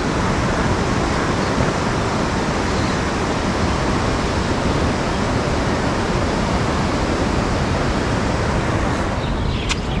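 Strong wind buffeting the microphone over the steady rush of a swollen, fast-flowing river at a barrage: one even roar.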